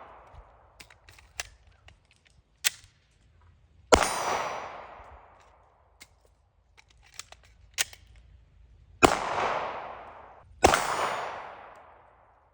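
Glock 19 pistol firing three single shots, each followed by a long echoing tail: one about four seconds in, then two more about a second and a half apart near the end. Between the shots there are sharp short clicks and clacks of a magazine change.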